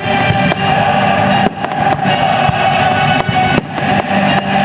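Fireworks display: aerial shells bursting with several sharp bangs, about one a second, over loud music playing throughout.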